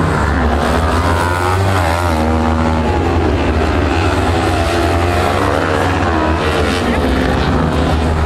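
Engines of small dirt-track race buggies running hard on the circuit, several at once, their pitch rising and falling as they accelerate and lift off through the corners.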